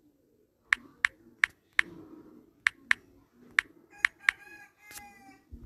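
About ten separate taps on a smartphone's on-screen keyboard as a phone number is keyed in, each a short sharp click at an uneven pace. Two short pitched calls come in near the end.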